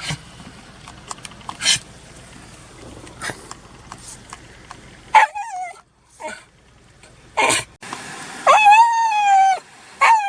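Black Shiba Inu barking and whining: several short sharp yips, then a long high whine near the end. The dog is demanding treats.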